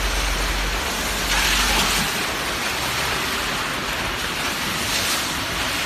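Steady hiss of heavy rain and wind in a storm, with a low wind rumble on the microphone that stops about two seconds in.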